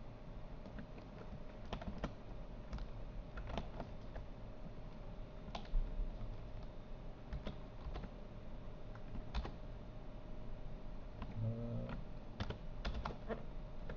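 Computer keyboard keys and mouse buttons clicking irregularly, singly and in small clusters, as the mesh is edited in Blender; a brief low hum sounds about three-quarters of the way through.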